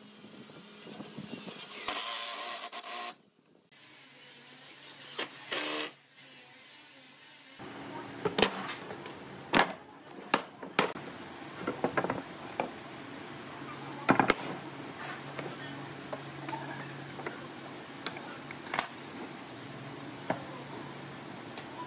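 A cordless drill runs briefly, driving a screw into pine. From about eight seconds in, pine boards are set down and shifted on a wooden workbench: scattered knocks and scrapes, the loudest about six seconds later, over a steady low hum.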